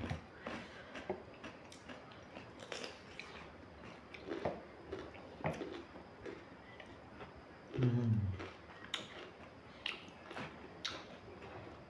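Close-up eating sounds: chewing with short crisp crunches from bites of raw cucumber, and small clicks of hands at the plates. About eight seconds in, one of the eaters gives a short low hum that falls in pitch, the loudest sound.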